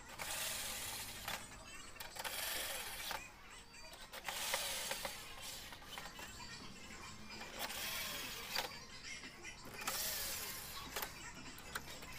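Cordless drill-driver working screws in the metal frame of an LCD panel, running in short repeated bursts, its motor pitch rising and falling with each one.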